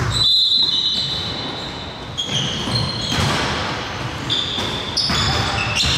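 Basketball game play on an indoor court: a ball bouncing, with many short, high squeaks from sneakers on the court floor.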